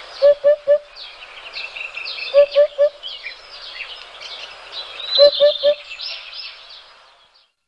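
Birds chirping and trilling in a mixed chorus, with a lower three-note call heard three times; it fades out near the end.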